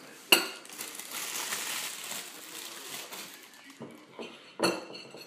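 A ceramic plate set down on a wooden table with a sharp clack, then a couple of seconds of plastic wrapping rustling and crinkling. Near the end a table knife clinks against the plate.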